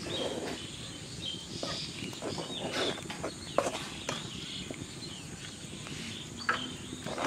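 A steel spoon stirring and pressing a thick rice-flour dough around a metal pot, giving irregular scrapes and clicks against the pot. The loudest clicks come a little past halfway and near the end.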